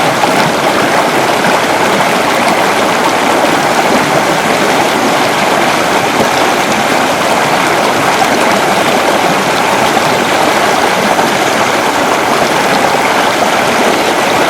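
Rushing water: a steady, loud, unbroken wash of a fast stream or waterfall.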